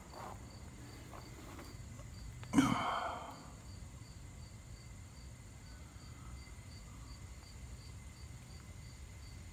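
Crickets chirping in the background, a faint, even high chirp about three times a second. About two and a half seconds in, a brief louder sound lasting under a second, like a breath or a knock, cuts in.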